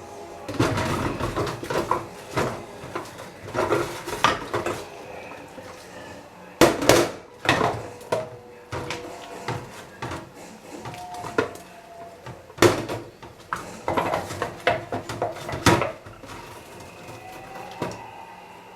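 Dishes and cutlery clattering, with a run of sharp knocks and rattles, several of them loud.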